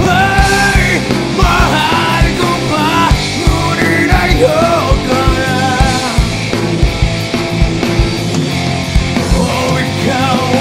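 Punk rock band playing: distorted electric guitar, electric bass and a drum kit keeping a steady beat, with a voice singing over them.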